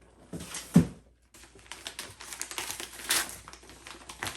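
Bubble wrap and packing material crinkling and crackling as they are handled and pulled from a shipping box, with a dull thump about a second in.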